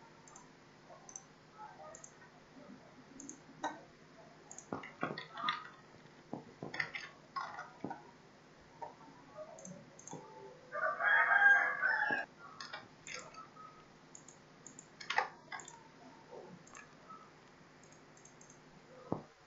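Scattered taps of computer-keyboard typing and mouse clicks, and about eleven seconds in, one loud pitched call lasting about a second and a half.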